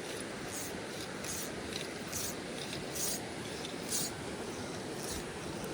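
Steady rush of a mountain creek, with soft, brief rustling scrapes coming about once a second.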